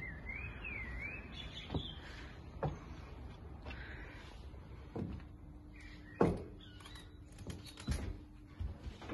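Birds chirping and warbling outdoors, with a few sharp knocks and clicks, the loudest about six seconds in, as the wooden balcony door is passed through.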